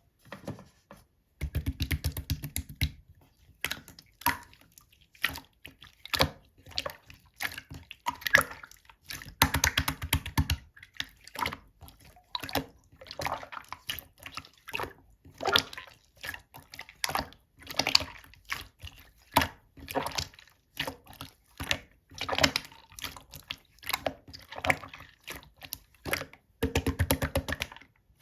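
Deep purple clear slime being pressed, poked and stretched by hand: a string of wet clicks and squelches, with several bursts of rapid crackling lasting a second or so.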